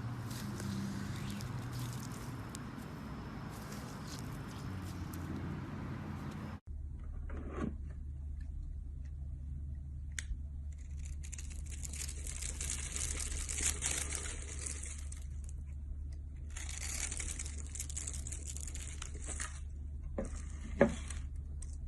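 Close-up crunching, crumbling and squishing handling sounds in two separate clips: a steady textured rustle, then, after a sudden cut, repeated stretches of crisp high crackle with a few sharp clicks over a low hum.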